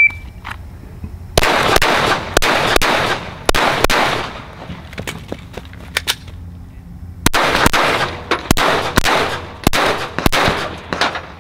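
A shot timer's short high beep at the start, then 9mm pistol shots in two strings: a few shots beginning just over a second in, a pause of about three seconds, then a quicker string of about eight shots running to the end.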